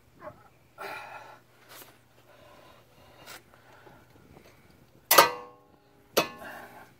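Metal tools and brake parts handled during a brake pad change: a few faint knocks, then a loud sharp metallic clank about five seconds in that rings briefly, and a second clank a second later.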